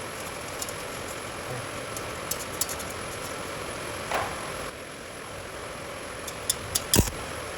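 Stick (rod) arc welding: a steady crackling hiss with scattered sharp pops. A single loud knock comes near the end.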